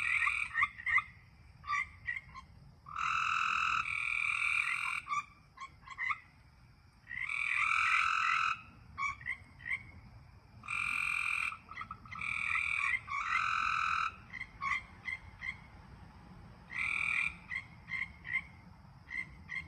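Frogs calling: loud buzzy trills about a second long, repeated every couple of seconds, interleaved with quick runs of short chirps.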